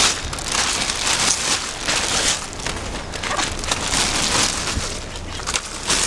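Clear plastic bag crinkling as it is handled, in irregular crackly bursts.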